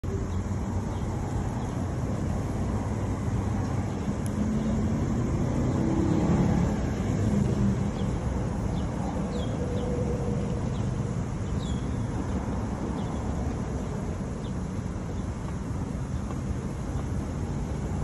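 Steady low rumbling background noise, with a few faint, short high chirps scattered through the middle.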